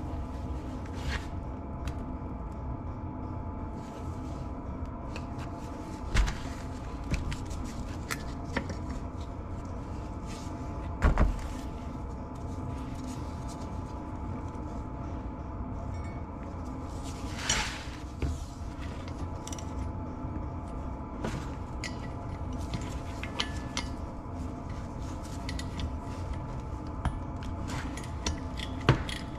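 Cast metal housings and parts of a Garrett T04E turbocharger being handled and set down on a cardboard-covered workbench during disassembly: scattered knocks and clinks, with a few louder thumps and a longer scrape, over a steady hum with held tones.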